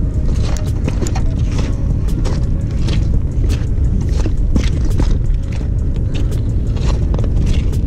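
Steady low rumble of wind buffeting the microphone, with scattered light clicks and taps as hands work a spinning reel.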